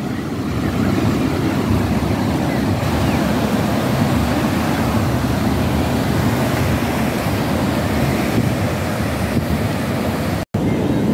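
Ocean surf breaking on the beach as a steady wash, mixed with wind rumbling on the microphone. The sound cuts out for an instant near the end.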